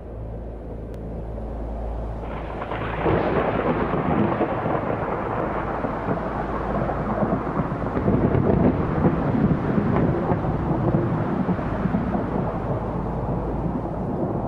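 Thunderstorm sound effect: rolling thunder with dense rain noise, swelling in about three seconds in after a low steady drone.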